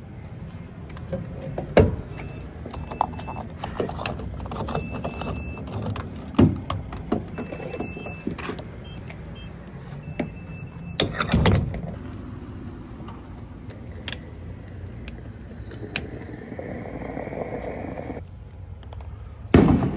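Fireworks going off: several sharp loud bangs about two, six and eleven seconds in and again near the end, over the low rumble of a vehicle, with a high beep sounding on and off during the first half.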